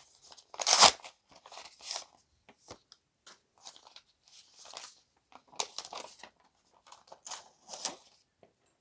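Paper envelope and taped plastic card sleeves being torn, peeled and handled: irregular crinkling and crackling, loudest about a second in, with further bursts of rustling.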